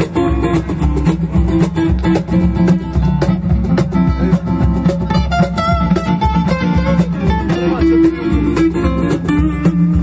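Live acoustic guitar strummed over a steady cajón beat.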